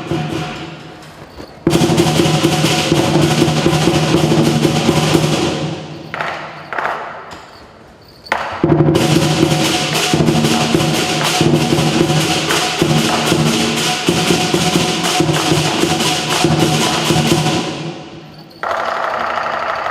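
Lion dance percussion: a large drum, clashing cymbals and gong played in loud, rapid passages. The playing starts about two seconds in, eases off for a couple of seconds in the middle, comes back loud and drops away near the end.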